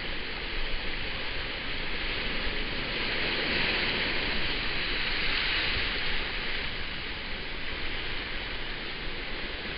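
Steady rush of wind and water past a sailboat running downwind under spinnaker, with wind buffeting the microphone. The hiss swells a few seconds in, then eases.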